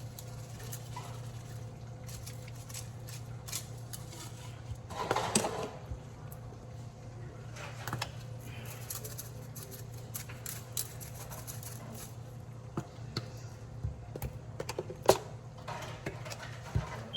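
Light kitchen clatter of utensils and dishes: scattered soft clicks and knocks, a brief rustling clatter about five seconds in and a sharper knock near the end, over a steady low hum.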